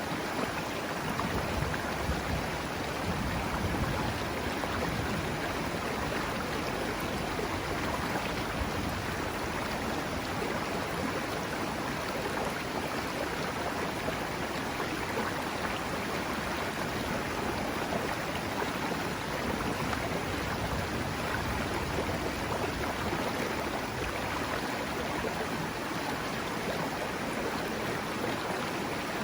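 River water flowing: a steady, even rush with no change.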